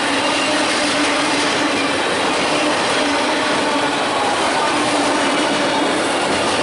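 Freight train's autorack cars rolling past, a steady loud rush of steel wheels on rail with a faint steady tone running through it.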